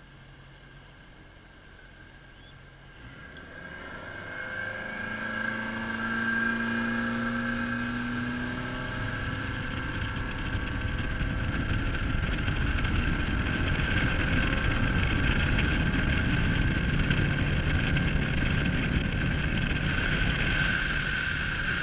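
Bass boat's outboard motor throttling up: a few seconds in it grows louder with its pitch rising, then it runs steadily at cruising speed with water and wind noise under it.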